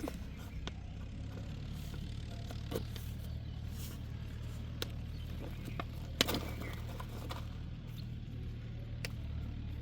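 Steady low hum of a running motor, with a few scattered sharp clicks and knocks, the loudest about six seconds in.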